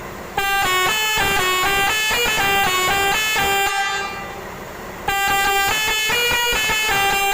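Six-trumpet Basuri telolet air horn set, Indian-made, playing a tune of short stepped notes with several trumpets sounding together. The tune breaks off for about a second midway, then carries on.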